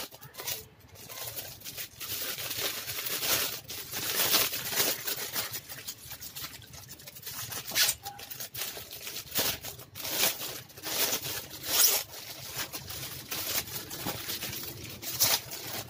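Clear plastic sleeve and bubble wrap crinkling and rustling in uneven crackles as a diary is pulled out of its plastic wrapping by hand.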